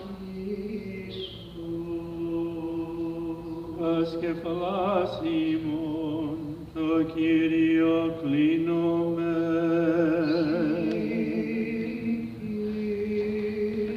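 Unaccompanied Orthodox Vespers chant. A melody with wavering ornaments is sung over a lower held note, which shifts up a step near the end.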